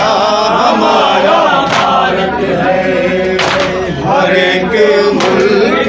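A group of men chanting an Urdu nauha (Muharram mourning lament) in unison, with the strikes of matam, hands beaten on chests together, landing about every second and three-quarters.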